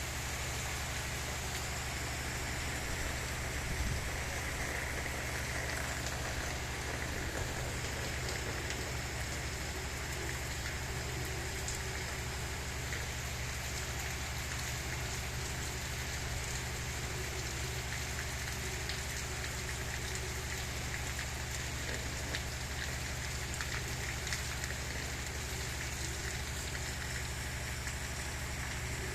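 Steady rain falling, with scattered drops ticking on a surface, over a steady low hum.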